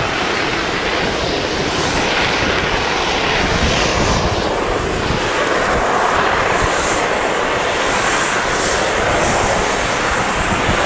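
Wind blowing over the microphone on an open chairlift ride: a loud, steady rushing noise that swells and eases.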